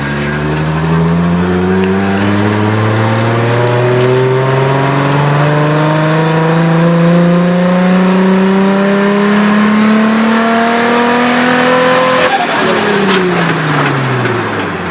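Nissan RB20DET turbocharged straight-six with a Precision 6766 turbo on a full-throttle pull at about 10 psi of boost: the engine note climbs steadily for about twelve seconds with a rising turbo whine above it. Near the end the throttle closes and the revs fall away, with a brief flutter from the turbo, which has no blow-off valve connected.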